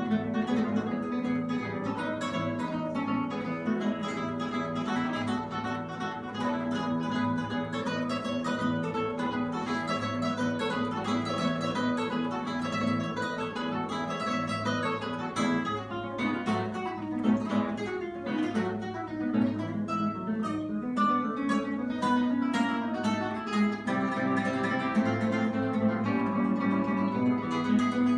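Two classical guitars playing a duet, many plucked notes flowing on without a break.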